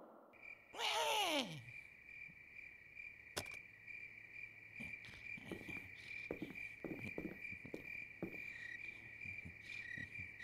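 Crickets chirring steadily. About a second in, a short loud tone slides steeply down in pitch, followed by a single sharp click and then scattered soft thumps.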